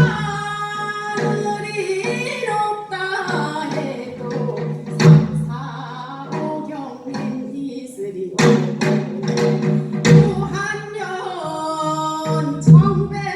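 A woman singing a Gyeonggi minyo folk song in a sustained, ornamented vocal line, accompanied by a janggu hourglass drum whose sharp strokes accent the rhythm, with a few loud strikes a couple of seconds apart.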